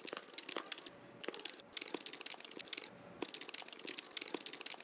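Rapid, irregular clicking of keyboard keys being typed, many strokes a second.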